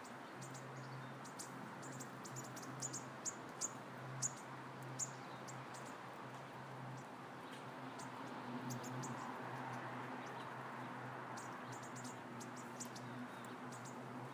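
Faint, short, high-pitched chirps scattered in clusters through the first few seconds and again past the middle, over a low steady hum.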